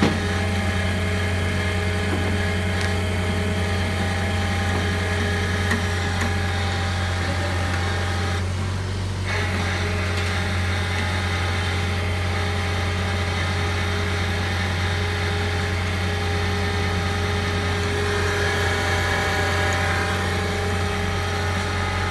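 Toyota Starlet EP71's 4E-FTE four-cylinder turbo engine idling steadily, with an even, unchanging note.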